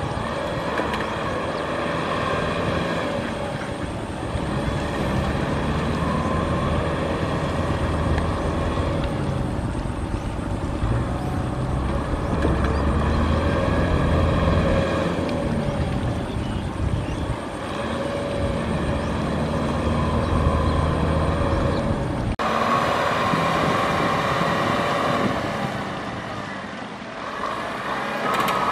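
Kubota farm tractor's diesel engine running hard under load as it pushes through deep mud with its rear rotary tiller, the engine note rising and falling again and again. The sound changes abruptly about three-quarters of the way through.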